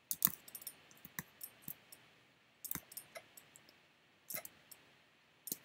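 Faint clicking of a computer mouse and keyboard, in small scattered clusters of sharp clicks.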